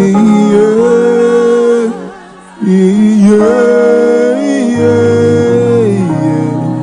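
Slow worship music: held keyboard-like chords under a gliding, wavering melody line in two long phrases, the second starting about two and a half seconds in.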